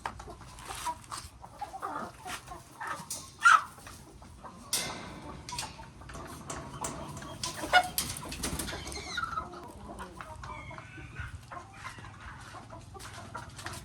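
Chickens clucking, with many small clicks and knocks scattered throughout and two louder, sharper sounds about three and a half and eight seconds in.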